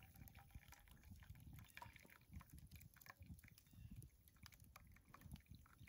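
Near silence, with faint low rumbles and scattered small clicks.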